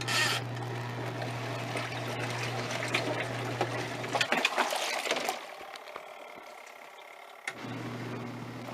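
Giantex Costway twin-tub washing machine running its wash cycle: a steady motor hum with water and clothes churning in the tub. The motor stops a little past halfway and starts again about three seconds later.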